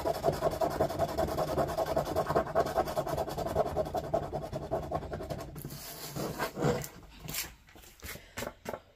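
A coin rubbing rapidly back and forth over the scratch-off panel of a paper greeting card for about five and a half seconds, then stopping. A few light taps and handling sounds follow as the card is picked up.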